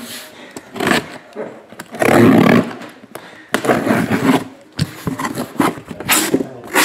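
Cardboard shipping case being torn open by hand: tape, plastic wrap and flaps ripping and scraping in several rough bursts, the loudest about two seconds in.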